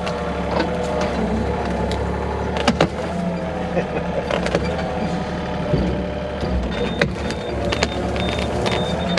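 Small excavator's engine running under load while its hydraulics whine, the pitch wavering as the arm strains at a tree limb. A few sharp cracks and knocks come through, about a third of the way in and near the middle.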